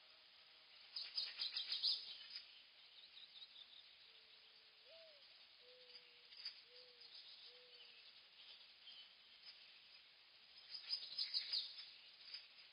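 Birds chirping in two bursts of rapid high notes, about a second in and again near the end, with a few low, clear drawn-out notes in between.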